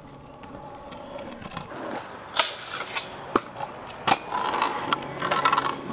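Stunt scooter's wheels rolling over rough asphalt, getting louder as it comes closer, with a few sharp knocks from the deck and wheels.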